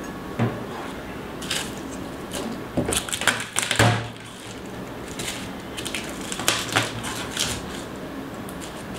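Garlic cloves being crushed in the kitchen: a run of irregular knocks and crunches, loudest in a cluster about three to four seconds in.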